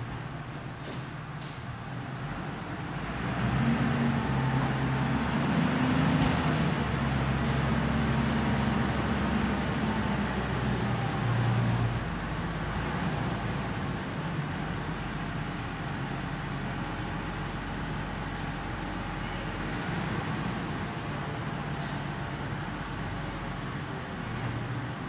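JCB 436 wheel loader's diesel engine running, louder from about three seconds in as the machine works, then settling to a steadier, slightly lower level after about twelve seconds.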